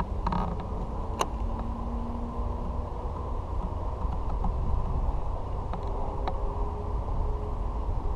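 Steady low rumble of wind and handling noise on a chest-mounted GoPro with its housing's back door open, with a few light clicks from the fishing reel and tackle, one sharper click about a second in.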